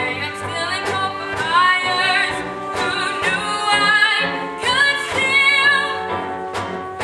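A chorus of voices singing a musical-theatre number over instrumental accompaniment, with long held notes that waver.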